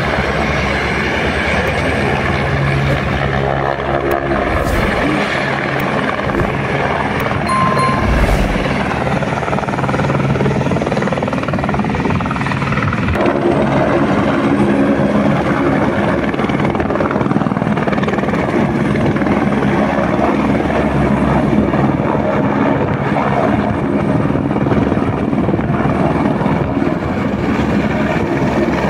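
Helicopter running close by, its rotor and engine making a loud, steady noise, with the pitch shifting a little about halfway through.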